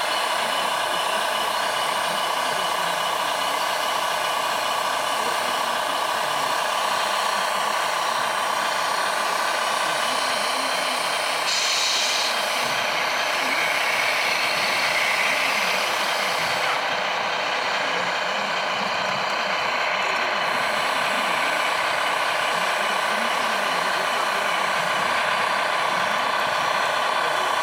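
Radio-controlled dump truck running steadily with an even, unchanging hum of several tones while its tipper bed is raised and lowered, with a brief hiss about twelve seconds in.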